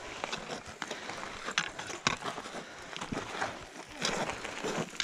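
Hiking boots scuffing and crunching on loose volcanic rock, with irregular sharp clicks of a trekking pole's tip striking the stones.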